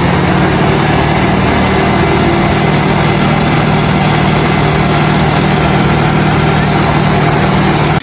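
Concrete mixer truck's diesel engine running steadily and evenly while the truck discharges concrete down its chute.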